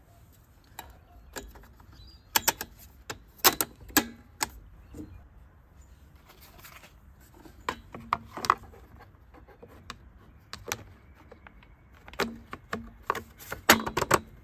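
Plastic recoil starter housing of a Sanli OHV 400 four-stroke mower engine being set back over the flywheel and pressed into place, giving sharp clicks and knocks in three clusters.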